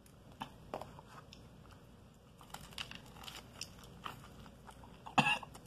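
Close, crunchy biting and chewing of a crispy fried chicken drumstick's breaded coating, with a couple of light taps within the first second and one sharp, loud crunch about five seconds in.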